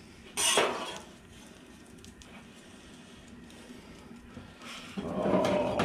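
A metal spatula scrapes briefly across a steel griddle plate about half a second in. Near the end there is a second, lower sound lasting about a second.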